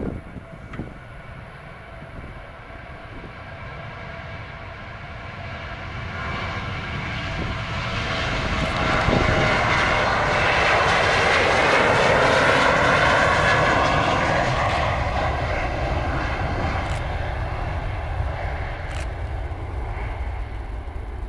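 Boeing 737 jet airliner's turbofan engines at takeoff thrust, heard during the takeoff roll and lift-off. The sound builds as the jet approaches, peaks about halfway through with whining tones sliding down in pitch as it passes, then slowly fades as it climbs away.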